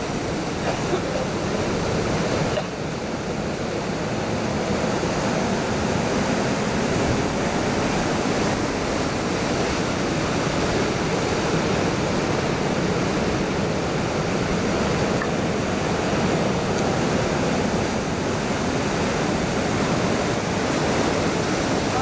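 Ocean surf breaking and washing in, a steady rushing noise with no let-up.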